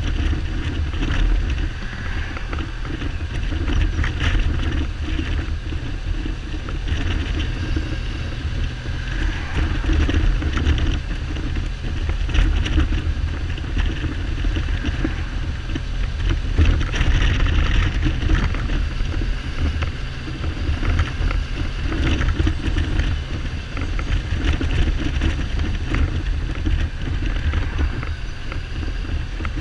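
Kawasaki Z1300's inline-six engine running on the move, under heavy wind noise on a helmet-side camera microphone. The engine is not firing on all cylinders, a misfire the rider puts down to carburettor or spark plug trouble.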